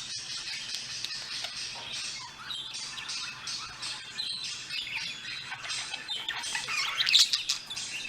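Many birds chirping and squawking, a dense continuous chorus that swells to its loudest about seven seconds in, played from a video.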